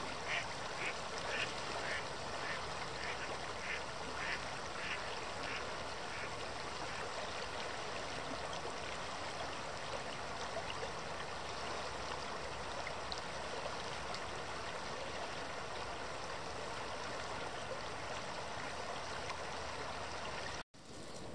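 Ducks quacking: a run of short calls, about two a second, that dies away after about five seconds, over a steady hiss of running water. The sound drops out for an instant near the end.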